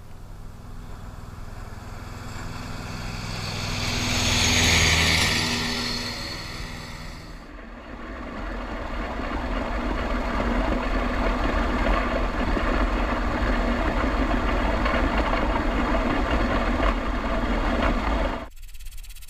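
A steady engine-like rumble swells to its loudest about five seconds in and then fades. After a cut it gives way to a denser, noisier rumble that holds steady and stops abruptly near the end.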